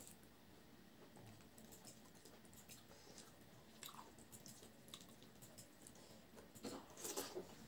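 Quiet sounds of eating by hand: faint small clicks as fingers mix rice and curry on a plate, then, about seven seconds in, louder mouth sounds as a handful of rice is taken into the mouth and chewed.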